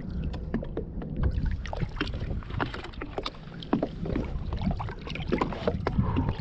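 Water splashing and sloshing around a big redfish held in the water beside a slowly moving boat to revive it, in many short irregular splashes over a low rumble of wind on the microphone.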